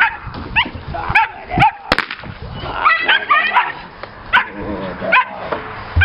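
Belgian Malinois puppies yipping and barking in short, high-pitched calls, about a dozen spread over the few seconds, excited as they go after and tug at a bite pillow.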